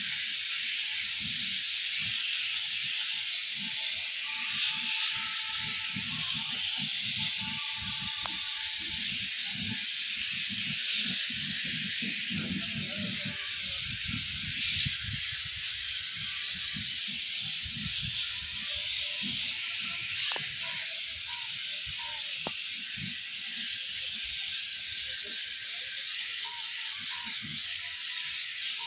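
Gravity-feed spray gun hissing steadily as compressed air atomises metallic silver paint onto a steel wheel rim, with an uneven low rumble underneath.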